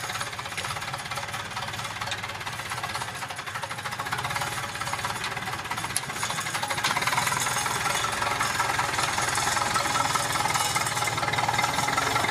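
Zetor tractor's diesel engine clattering as the tractor drives up pulling a loaded log trailer, growing louder about halfway through as it approaches.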